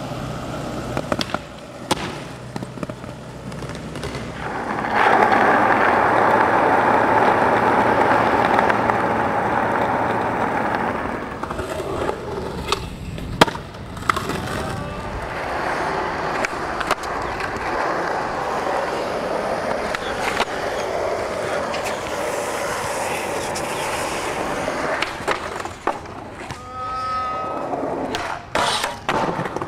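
Skateboard sounds: urethane wheels rolling on concrete, sharp wooden clacks of ollie pops and landings, and metal trucks grinding along steel handrails. There is a loud, steady stretch of rolling and grinding noise in the first half.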